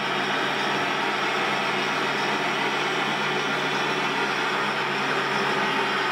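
Radio-controlled model Komatsu HD 605 dump truck running as it drives with its bed tipped up: a steady mechanical drone with no change in pitch or level.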